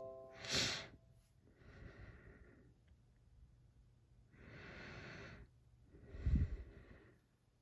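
A person breathing close to the microphone: four or five separate breaths, each about a second long, with a low thump under the breath about six seconds in.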